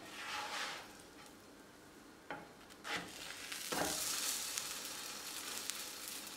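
A butter-fried sandwich being flipped with a spatula in a nonstick pan, with butter sizzling throughout. A soft scrape as the spatula slides under comes first, then light knocks about two, three and nearly four seconds in as it is turned over. The sizzle grows louder once the unbrowned, buttered side lands in the hot butter.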